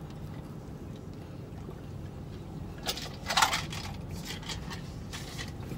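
Biting into and chewing a crispy fried chicken sandwich: a short burst of crunching about three seconds in, over a steady low hum.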